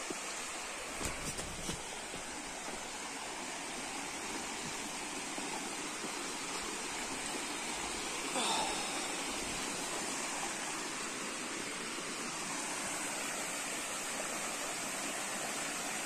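A rocky mountain stream rushing over stone ledges and small cascades: a steady, even rush of water. A couple of soft thumps come about a second in.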